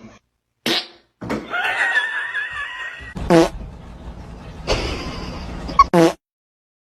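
Fart sound effects played in short, edited bursts that start and stop abruptly, one of them carrying a high wavering tone, before the sound cuts to silence near the end.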